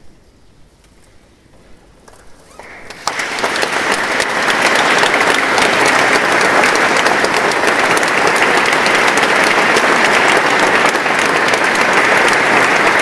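Audience applause breaking out about three seconds in, after a quiet pause, then continuing steadily as a dense sound of many hands clapping.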